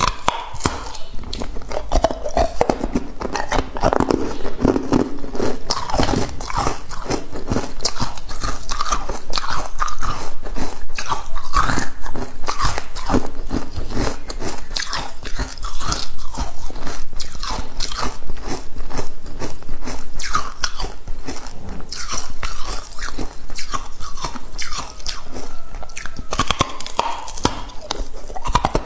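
Close-miked biting and chewing of hard frozen matcha ice: a dense, continuous run of sharp cracks and crunches as the slabs break between the teeth.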